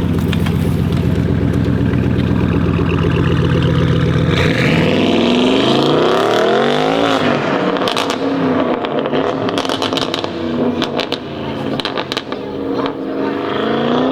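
Audi RS7 C8's twin-turbo V8 through a loud custom exhaust: it runs steadily, then accelerates hard with the pitch climbing from about four seconds in. It lifts off about seven seconds in, followed by a long series of sharp exhaust crackles and pops. Near the end it revs up again.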